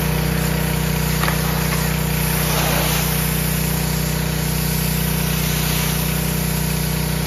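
Pressure washer running steadily with a constant motor hum, its water jet hissing as it blasts the boat's deck.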